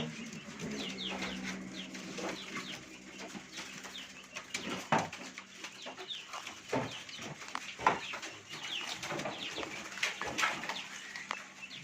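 Many caged songbirds chirping and calling at once in short, quick, falling notes, with a few sharp knocks among them.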